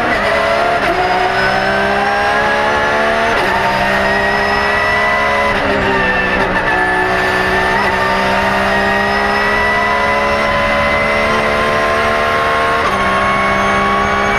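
Porsche 911 GT3 R's flat-six racing engine at full throttle, heard inside the cockpit: its note climbs steadily, with a brief drop in pitch at each of four upshifts, about a second in, near 3.5 s, near 5.5 s and near the end, the longest pull running between the last two.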